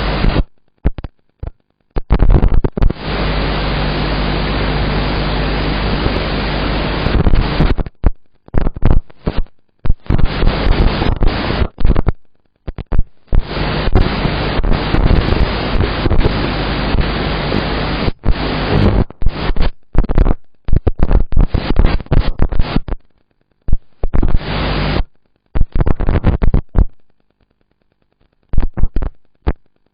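Loud static hiss with a low hum underneath on the audio of a 7-inch FPV drone flight, cutting in and out abruptly many times and breaking into short bursts near the end.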